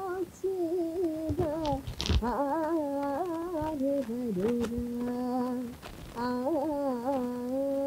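A woman singing a wordless Carnatic classical vocal phrase, with quick ornamented turns in pitch, a couple of held notes and a long steady note near the end.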